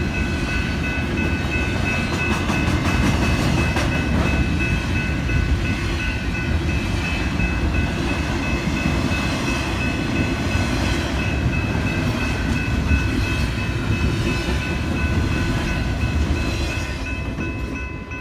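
Train rolling past: a steady low rumble of wheels on rail, with a few thin, steady high-pitched tones over it and occasional faint clicks.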